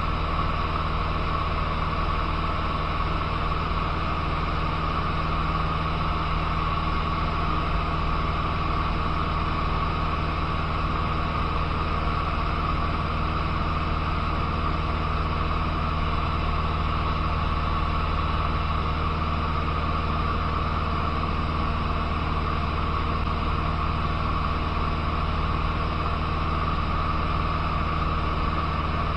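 Cessna 150's Continental O-200 four-cylinder engine and propeller running steadily in cruise flight, heard inside the cockpit with a constant rush of air noise.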